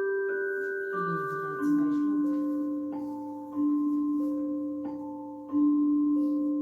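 Gentle chime-like melody of sustained mallet-percussion notes, a new phrase struck about every two seconds, playing from a sunrise alarm clock's built-in speaker as one of its alarm or soothing sounds.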